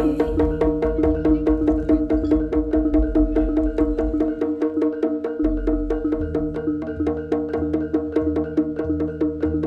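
Live jaranan gamelan music: a fast, steady run of struck percussion, about five beats a second, over held pitched tones and a low drum part that drops out for about a second midway.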